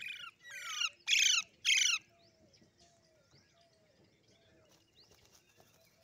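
Alexandrine parakeets giving four loud calls in quick succession within the first two seconds. Only a faint run of short, low notes follows.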